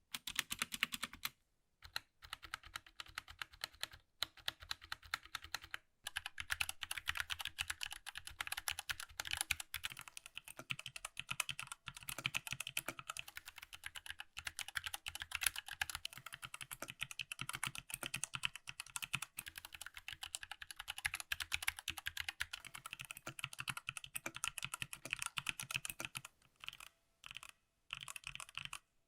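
Typing on a 60% mechanical keyboard: fast, continuous key clicks with a few short pauses in the first seconds, thinning to scattered single keypresses near the end.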